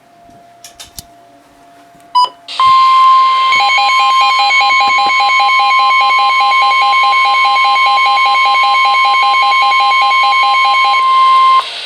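NOAA Weather Radio 1050 Hz warning alert tone, a loud steady single tone that starts about two and a half seconds in and stops just before the end, sounded ahead of a severe thunderstorm warning broadcast. A short beep comes just before it, and a fast pulsing alarm beep runs over most of the tone.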